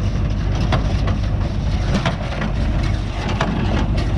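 New Holland 68 square baler running behind a tractor: a steady low engine drone with sharp mechanical knocks about once or twice a second from the working baler.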